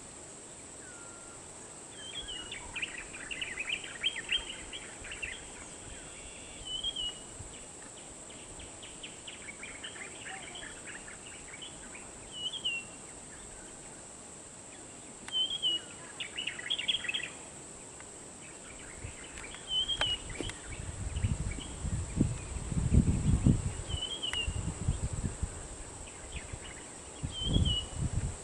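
Birds calling: a short chirp repeated every few seconds and bursts of rapid chattering, over a steady high-pitched insect drone. In the second half, low rumbling bursts come and go and are the loudest sounds.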